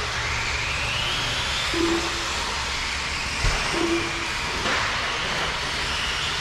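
Electric RC short course trucks racing: a motor whine rises in pitch near the start as a truck accelerates, over a steady hiss. Two short low beeps sound about two seconds apart, with a thump between them.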